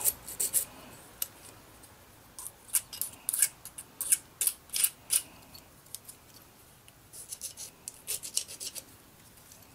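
Small hand file drawn over the edges of a thin aluminum strip to knock off the burrs. Short strokes come at roughly three a second, in three runs with brief pauses between.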